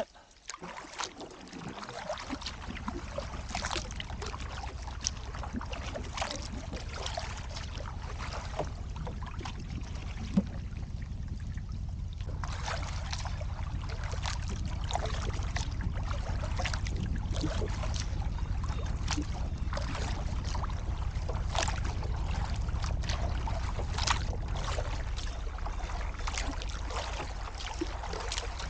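A canoe being paddled: the paddle splashes and drips water with each stroke, about one stroke a second, over a steady low rumble.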